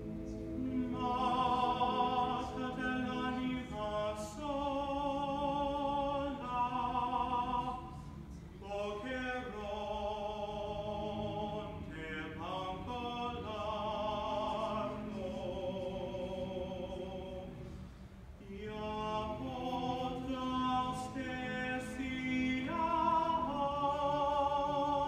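Mixed chamber choir singing held chords with vibrato, breaking off briefly about eight seconds in and again near eighteen seconds before coming back in.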